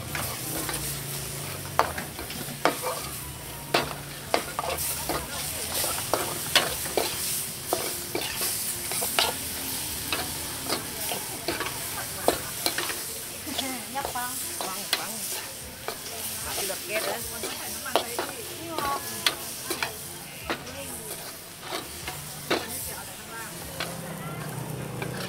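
Stir-frying: food sizzling in a hot pan while a utensil knocks and scrapes against it in many quick, irregular strokes.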